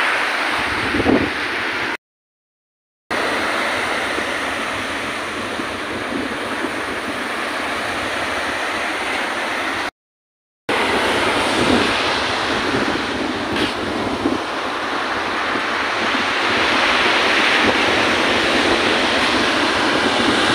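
Sea surf breaking and washing up a sandy beach in a steady rushing wash, with wind buffeting the microphone. The sound drops out to silence twice, for about a second each time, where clips are joined.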